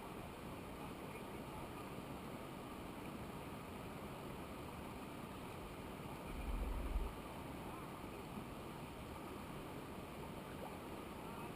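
Steady, even rush of flowing water, with a brief low rumble about six and a half seconds in.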